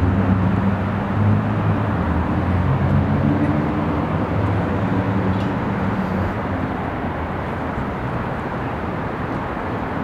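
Steady rush of road traffic, with a lower engine hum from a heavier vehicle that fades away over the first half.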